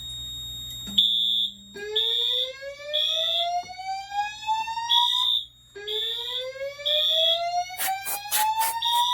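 Fire alarm system going into alarm: a high horn tone pulses on and off about once a second while the voice evacuation speakers play two rising whoop tones. A rapid pulsing buzz joins near the end.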